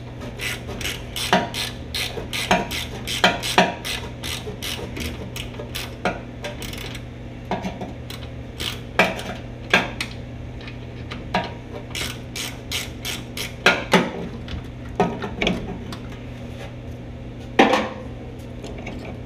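Ratchet wrench clicking in short runs of strokes as it backs out the last bolt holding a power steering gear box to the frame, with a louder scrape near the end.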